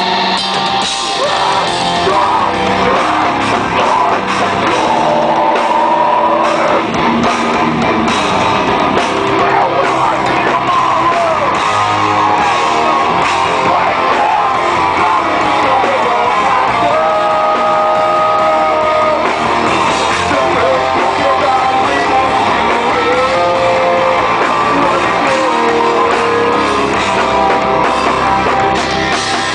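A rock band playing live at full volume, with guitars, a drum kit and singing, including some long held notes in the middle.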